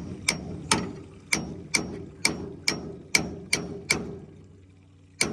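Hammer blows ringing on steel, about two a second: nine in a row, then one more near the end. They are knocking the pitman arm to break it loose from the steering gear box shaft.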